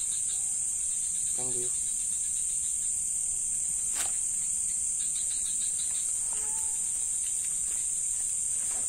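Night insect chorus of crickets: a steady, high-pitched, unbroken shrill, with a sharp click about four seconds in.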